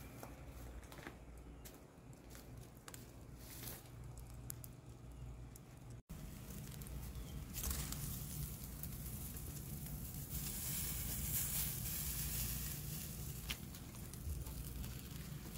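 Maple coals burning in a wood-fired oven, crackling with scattered clicks and pops. About six seconds in, a cut brings a louder, denser hiss and crackle.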